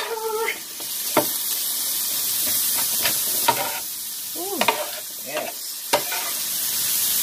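Shaved steak, mushrooms and green peppers sizzling on a hot flat-top griddle while metal spatulas chop, scrape and toss them, with several sharp clacks of the spatula edges striking the griddle.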